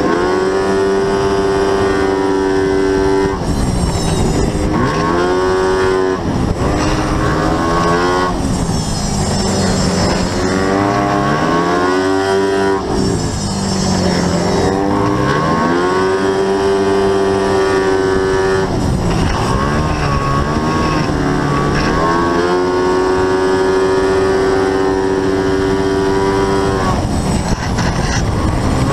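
Racing scooter's single-cylinder engine at high revs, heard onboard. The note holds at one steady pitch for stretches, then drops away and climbs back several times as the rider slows for corners and accelerates out.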